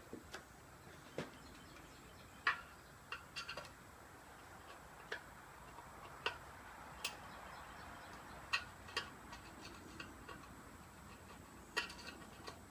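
Scattered sharp clicks and taps at irregular intervals, a dozen or so, from tools and hands working on the parts of a CRT television being taken apart.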